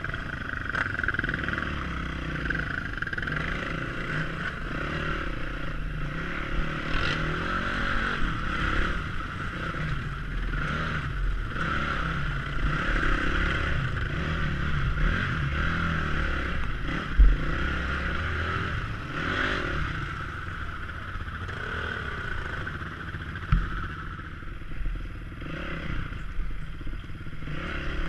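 Honda CRF250X dirt bike's single-cylinder four-stroke engine running at low revs, rising and falling with the throttle while picking slowly over rocks, with clattering and scraping from the bike. A few sharp knocks stand out, the loudest about seventeen seconds in.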